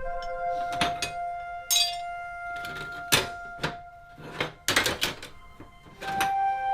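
Background music with long held notes, over a handful of sharp knocks and clinks spread through.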